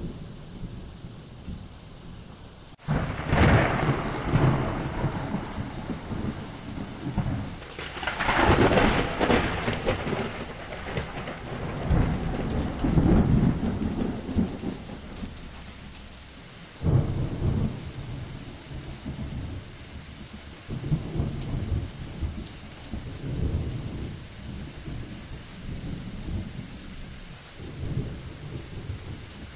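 Steady rain with rolling thunder. A sudden thunderclap about three seconds in opens a long rumble that swells again twice. A second sharp clap comes about halfway through and is followed by weaker rumbles.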